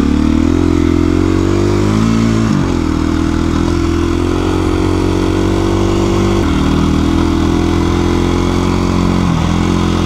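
KTM 350 EXC-F single-cylinder four-stroke dirt bike engine running under way. Its note climbs for the first couple of seconds, drops sharply about two and a half seconds in, then holds fairly steady with brief dips.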